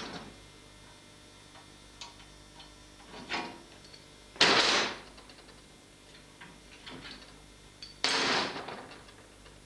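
Metal tools and clamps clattering as they are picked out of a box and set down on a steel workbench: a few short clanks and rattles, the loudest about four and a half seconds in and another about eight seconds in, with small clicks between, over a low mains hum.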